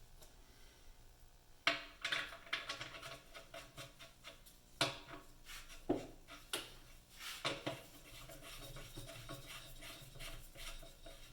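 Metal hand tools and engine parts clinking, clanking and scraping as fasteners are worked on: an irregular run of sharp clicks and knocks, the loudest about two and five seconds in.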